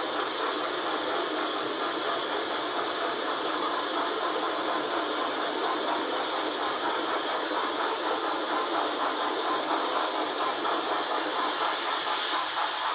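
Steady simulated steam hiss from the sound system of an HO scale model steam locomotive standing still while taking on water.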